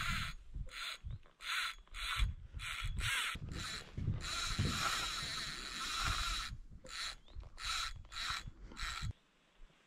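Spinning reel whirring in repeated bursts, its gears and drag working as a hooked pollack is fought on a bent rod; the whirring stops suddenly about nine seconds in.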